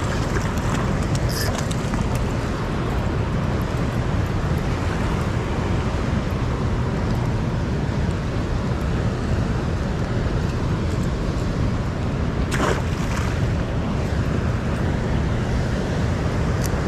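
Steady wind-and-water noise with wind buffeting the microphone, heaviest in the low rumble. A couple of short sharp clicks stand out, one a little past the two-thirds mark and one near the end.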